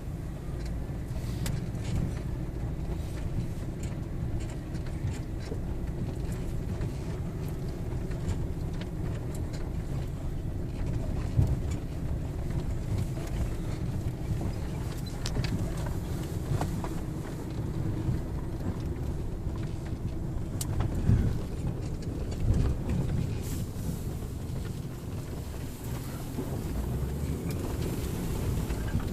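A vehicle driving slowly over a rough farm track: a steady low engine and road rumble, with a few louder bumps partway through.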